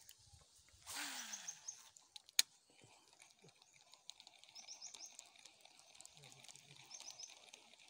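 Faint birds chirping in a repeating pattern, with a short rush of noise about a second in and a single sharp click a little after two seconds.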